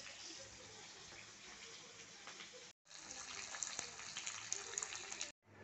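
Sliced onion, capsicum and green chillies sizzling as they fry in oil in a pan: a steady hiss with many small crackles. It drops out briefly twice, about halfway through and near the end.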